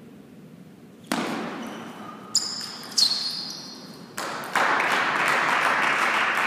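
Table tennis ball hits ending a rally: after a sudden burst of noise about a second in, two sharp ringing clicks come half a second apart. Spectators then applaud steadily from about four and a half seconds in.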